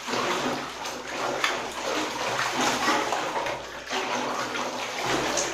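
Water sloshing and splashing in a bathtub as a child churns it around, pretending to be a washing machine.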